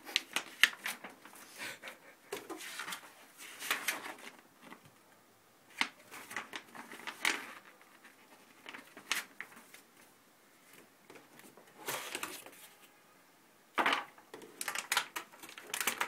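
Paper rustling and crackling in irregular bursts as a glossy fold-out installation guide is unfolded and its pages turned by hand, with brief pauses between. The handling grows busier near the end.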